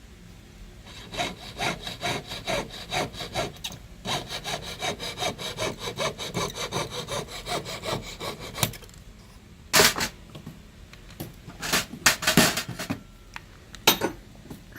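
Hand saw cutting through a gold earring casting with even back-and-forth strokes, about three a second, removing the leftover casting metal from the tree. The sawing stops about nine seconds in, followed by a few sharp clacks.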